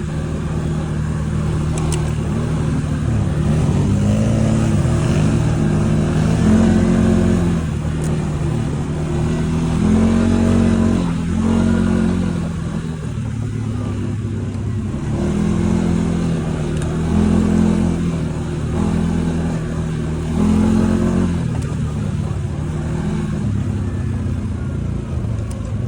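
ATV engine under way, its pitch climbing and easing off again and again as the throttle is opened and closed.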